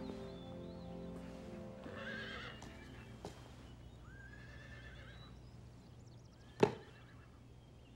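A horse whinnies twice as soft music fades out. About six and a half seconds in there is a single sharp knock, the loudest sound.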